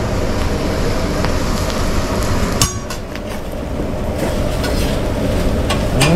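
Metal spatulas scraping and clacking on a hot teppanyaki griddle as eggs and vegetables are chopped and turned, over a steady rushing noise. One sharp clack comes a little before halfway.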